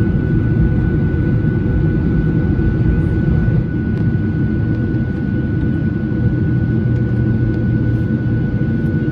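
Steady low rumble of a Boeing 737's engines and airflow heard inside the passenger cabin, with a thin constant whine running through it.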